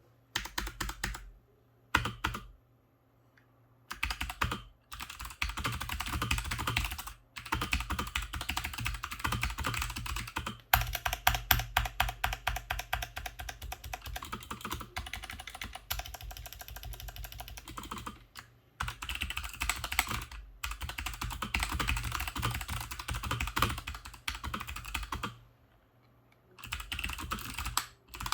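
Typing on an MSI Vigor GK50 Elite mechanical keyboard with clicky Kailh Box White switches: rapid runs of key strokes broken by several short pauses, fastest about a third of the way in.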